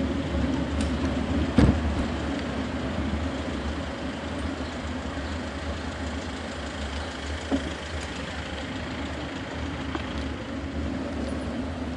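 Steady low rumble of a bicycle rolling over pavement, picked up by a camera mounted on the bike, with the engine noise of street traffic close by. A sharp knock about a second and a half in, and a smaller one about seven and a half seconds in.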